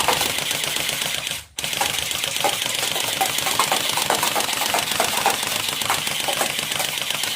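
Toy AK-47 gun firing on automatic: a fast, continuous rattle of clicks that stops for a moment about one and a half seconds in, then starts again.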